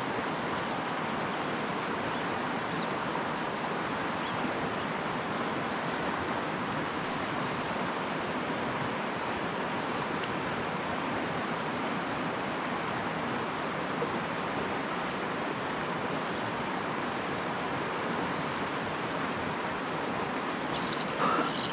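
Mountain stream running over shallow riffles and rocks: a steady, even rush of flowing water.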